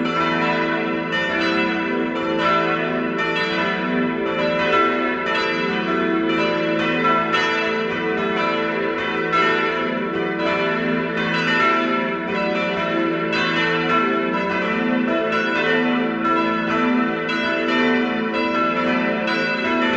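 Full peal of four swinging church bells, calling to a service. Their strokes overlap in a steady stream of about two a second over a sustained ringing hum.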